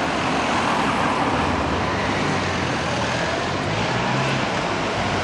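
Steady city street traffic noise, with a car engine passing close by about four seconds in.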